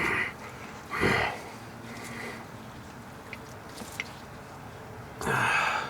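A man grunting with effort three times: once at the start, once about a second in, and once near the end. A couple of faint clicks fall in between.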